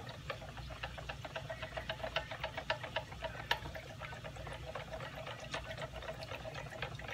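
Small wire whisk beating a dressing in a plastic measuring cup: the wires tick quickly and evenly against the cup's sides, several strokes a second.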